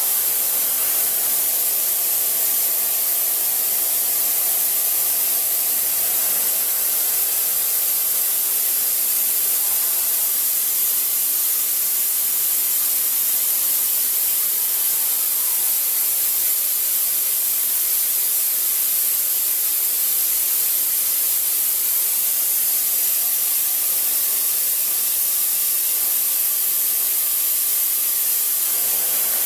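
CNC machining centre dry side-milling through a BT50 angle head: a steady, even hiss with faint steady tones beneath it.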